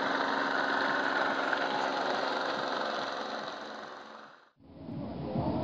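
A steady motor drone over an even background hiss, fading away about four seconds in; a lower, rougher rumble takes over near the end.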